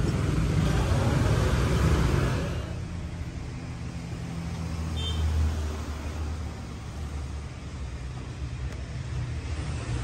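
Road traffic: the low rumble of passing vehicles, louder for the first couple of seconds and then dropping to a quieter hum.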